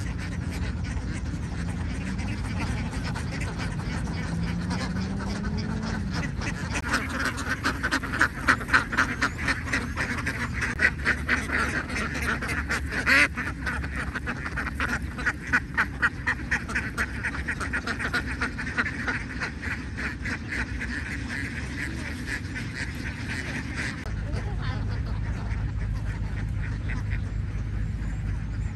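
A large flock of domestic ducks quacking: a dense run of rapid, overlapping quacks that swells about a quarter of the way in and drops away near the end, over a steady low hum.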